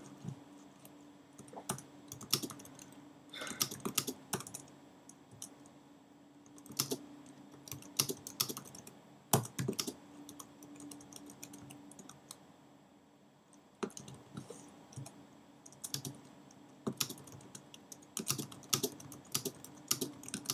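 Keystrokes on a computer keyboard, typed in irregular bursts of clicks with short pauses between them.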